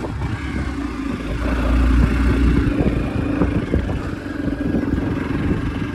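Motorcycle engine running under way on a rough dirt track, with a steady low hum and scattered knocks and rattles from the bumps. The rumble swells about two seconds in, then eases.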